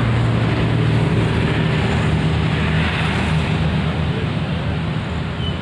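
Komatsu PC130F excavator's diesel engine running steadily with a low, even hum.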